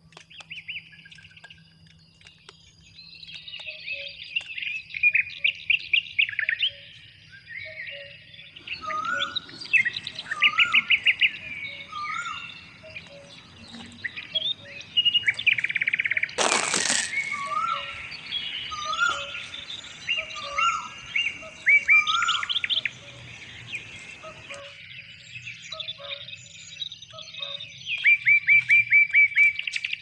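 Several forest birds calling over one another: fast chirping trills in short runs, and a rising whistled note repeated about once a second through the middle stretch. A short loud burst of noise cuts across the birdsong about halfway through.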